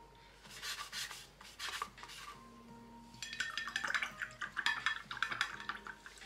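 Watercolour brush brushing across paper, then, from about three seconds in, being swirled in a glass water jar, clinking and rattling against the glass.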